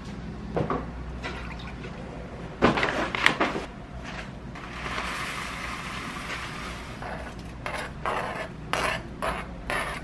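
Dry cereal poured from a bag into a glass bowl, a steady rattling hiss lasting about two seconds in the middle. A few sharp knocks come before it, and after it a run of short taps as a spoon scrapes chopped fruit off a plastic cutting board into the bowl.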